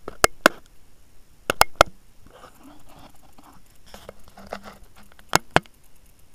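Several sharp knocks, mostly in quick pairs: two near the start, three close together about a second and a half in, and two more near the end, with faint rustling between.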